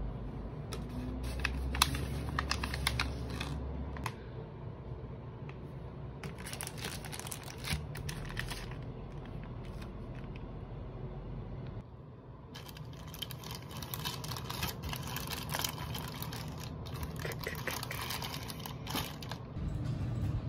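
Plastic packaging crinkling and rustling in three bouts, about a second in, about six seconds in, and from about twelve seconds until near the end, as packs of lickable cat treat sticks are handled, with a steady low hum underneath.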